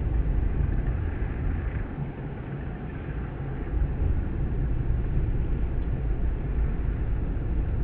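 Wind blowing across the microphone: a low, unpitched noise that swells and eases in gusts.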